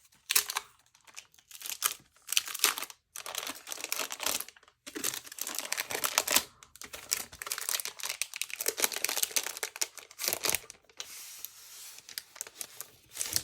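Plastic wrap crinkling in irregular handling bursts with short pauses, as a keyboard is unwrapped by hand; quieter near the end.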